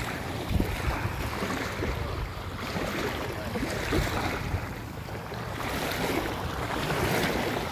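Small waves washing and lapping on a sandy shore, swelling and easing every few seconds, with wind buffeting the microphone.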